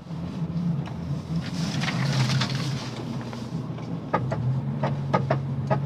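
1998 Honda Civic's four-cylinder engine running under a car turning left, with a run of sharp, repeated clicks, about three a second, starting partway through. The owner suspects a worn CV joint on the drive axle, though he is not certain.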